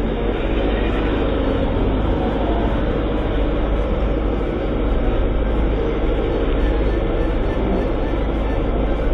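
Small motorboat running fast, its engine a steady low rumble under the rush of water against the hull.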